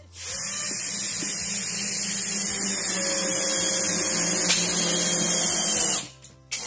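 Cordless drill running steadily at speed, then cutting off abruptly about six seconds in.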